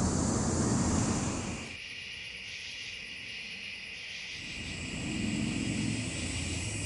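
Wind rushing on the microphone, cutting off abruptly a little under two seconds in and leaving a quieter steady high hiss. A low rumble of wind comes back about two-thirds of the way through.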